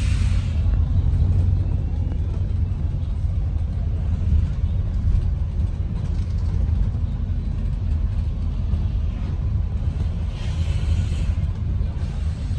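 ADL Enviro 400 MMC double-decker bus running, heard on board as a steady low engine and road rumble, with a hiss of compressed air lasting about a second near the end.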